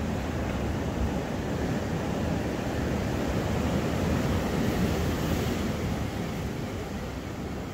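Sea waves washing on a rocky shore, a steady rush that swells a little midway, with wind buffeting the microphone.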